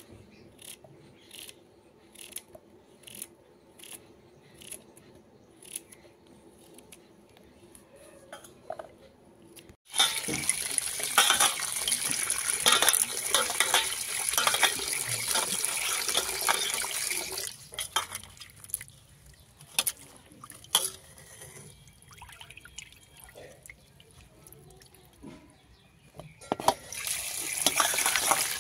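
A small knife cutting pumpkin pieces into a steel bowl, short cuts about two a second. Then tap water runs into the steel bowl while hands swish and rub the cut pumpkin cubes to wash them; the water eases off for a while and comes back strongly near the end.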